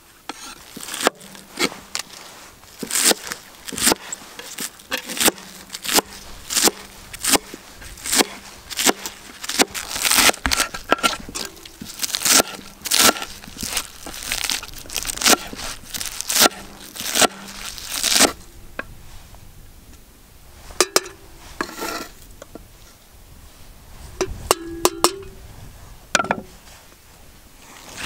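Fresh spinach being chopped with a broad-bladed knife on a wooden cutting board: crisp, irregular chops at roughly two a second, thinning out to a few scattered knocks after about 18 seconds.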